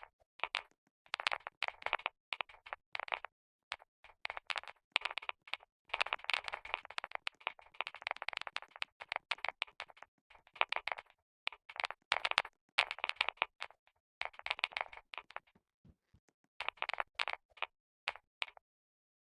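Keys of a computer keyboard being typed on in fast runs of clicks, with short pauses between runs; the clicking stops just before the end.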